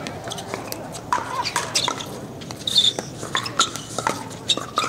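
Pickleball paddles striking a plastic pickleball during a rally: a string of sharp, hollow pops at uneven spacing, with a short high squeak near the middle.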